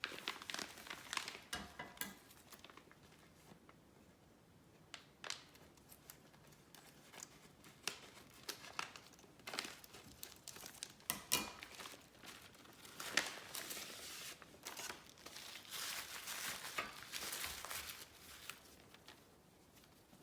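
Packaging being handled and opened: irregular crinkling and tearing, with a denser run of crinkling in the second half.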